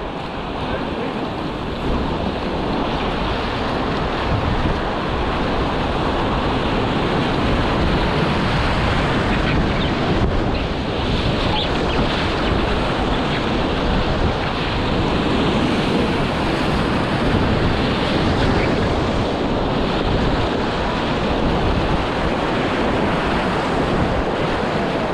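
Whitewater rapids on a river running at 1600 cfs, a steady loud rush of churning, splashing water heard close up at water level from the bow of a packraft.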